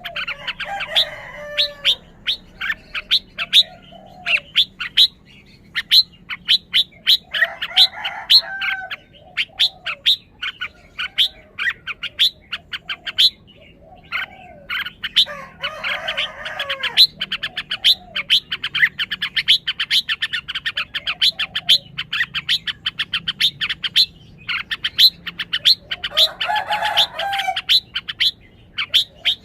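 Red-whiskered bulbul singing short warbled phrases four times, with small chirps between them. Throughout there is a rapid series of sharp clicks or chips, several a second.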